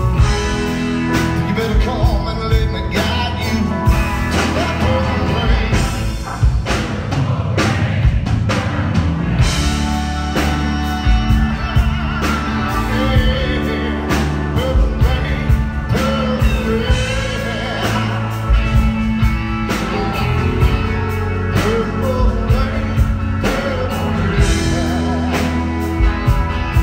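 Live rock band playing a slow ballad: electric guitars, bass and drums under a sung lead vocal line.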